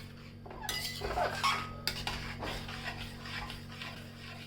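Metal spoon scraping and clinking against a cooking pan while stirring the turmeric-and-ghee mixture. The loudest scrape comes about a second in, with lighter scrapes and clinks after it, over a low steady hum.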